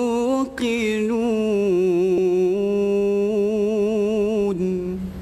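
Young male qari reciting the Quran in melodic tilawah style, holding one long ornamented note with small wavers in pitch. There is a short break about half a second in, and the voice stops just before the end.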